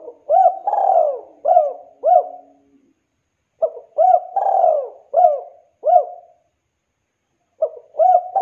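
Spotted dove cooing: three phrases of about five coos each, with a longer drawn-out coo in the middle of each phrase and roughly four seconds between phrases.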